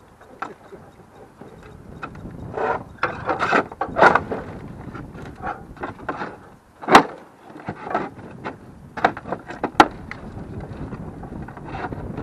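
Old metal roof flashing being pried and torn off with a pry bar: irregular scraping and crinkling of sheet metal, with several sharp knocks and clinks of the bar, the loudest about seven seconds in.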